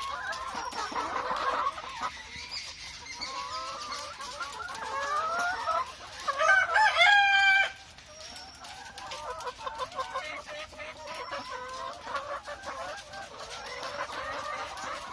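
A flock of caged BV380 layer hens clucking and calling over one another. One loud, drawn-out call stands out about halfway through.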